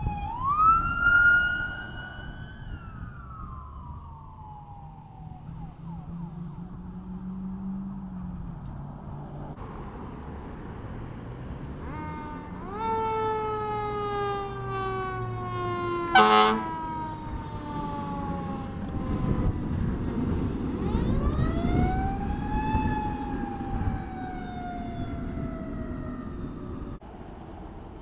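Emergency vehicle sirens wailing up and down: a sheriff's patrol car siren at the start, then a fire engine's siren winding up and slowly falling away over the low rumble of its engine. One short, very loud blast cuts in about 16 seconds in.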